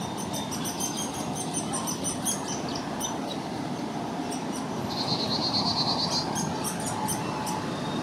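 Downy woodpecker chick begging for food from the nest hole: a long run of short, high, thin peeps, several a second. About the middle, while the adult female feeds it, the peeps are interrupted by roughly a second of fast, dense chatter, and then the peeping starts again.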